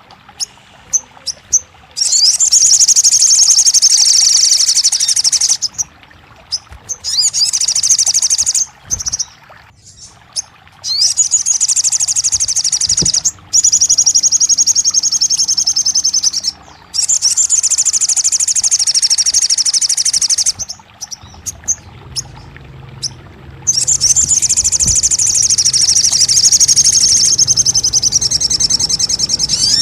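Sogon (crimson sunbird) singing: long, rapid, high-pitched trilling phrases of about two to four seconds each, repeated with short pauses between them, played as a recording to stimulate a caged bird to sing.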